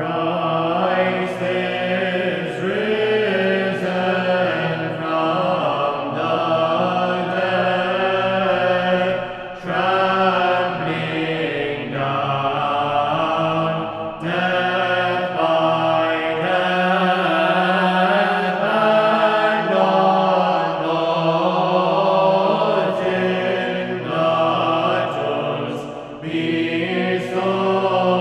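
Choral chant: several voices holding long sung notes, moving in slow phrases with brief breaks between them.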